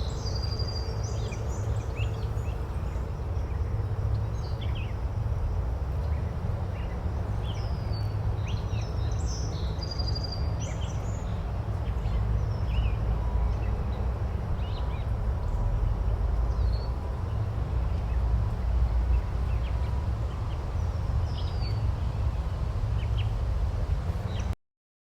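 Outdoor meadow ambience: small birds chirping and calling here and there over a steady low rumble. It cuts off abruptly near the end.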